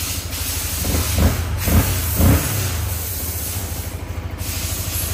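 Yamaha Xabre 150's single-cylinder engine idling with a steady low pulse and hiss. It is revved briefly three times, in quick succession, about a second in.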